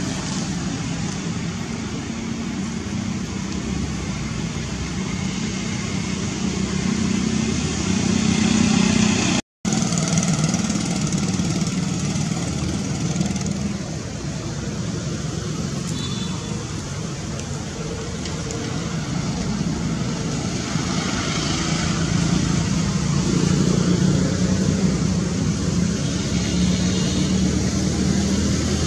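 Steady outdoor background noise with a low hum under it, cut off for a moment about a third of the way through.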